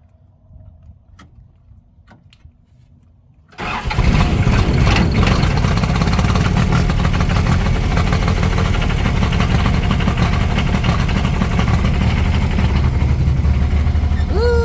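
Bobcat 116 excavator's diesel engine cold-starting after extra glow-plug time. A few faint clicks, then the engine fires about three and a half seconds in and keeps running loudly and steadily.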